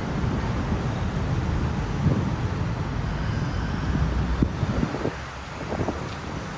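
Road traffic noise, a steady low rumble of passing vehicles.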